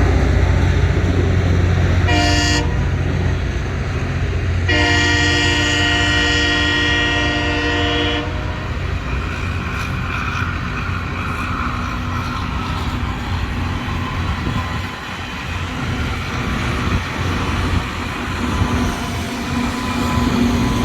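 Diesel locomotive horn sounding a short blast about two seconds in, then a longer blast of about three and a half seconds, over the heavy rumble of the train's engines. Afterwards the train's engines and wheels on the rails keep rumbling.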